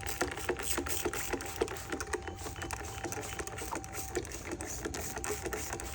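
Rapid, steady ticking of a BMX bike's freewheel ratchet as the cranks are turned backwards to work the chain. Under it runs a thin steady electrical buzz from the camera, which drops out about four seconds in and comes back a second later.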